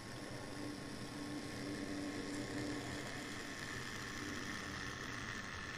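Two Minitrix N-scale V160 diesel locomotives running in double traction. Their small electric motors whir steadily and their wheels roll on the track, a little louder as the train comes close, with a higher whine growing toward the end.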